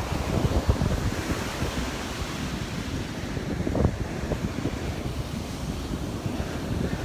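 Ocean surf washing onto the beach, with wind buffeting the microphone in uneven gusts.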